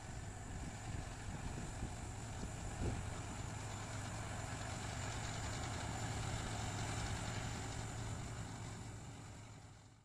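A farm machine's engine running steadily, with a brief knock about three seconds in; the sound fades out near the end.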